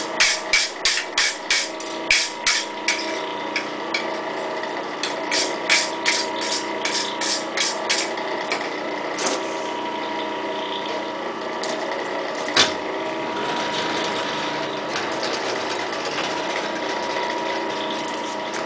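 Clay Spencer / Ray Clontz tire hammer striking hot round stock in two runs of blows, about three a second. The first run lasts about three seconds and the second runs from about five to eight seconds in, followed by a few single blows. A steady machine hum continues underneath and is left on its own for the second half.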